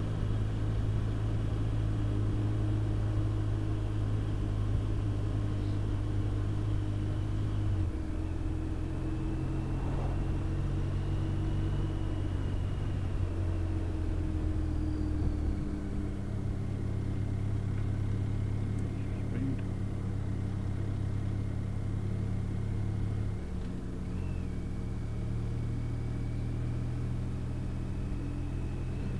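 Touring motorcycle engine running at road speed under the rider. Its steady hum shifts in pitch in steps three times as the speed changes, with a faint high whine riding along.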